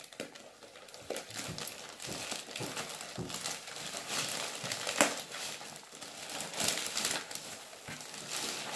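Black plastic mailer bag crinkling and rustling as hands handle it and pull it open, with one sharper crackle about five seconds in.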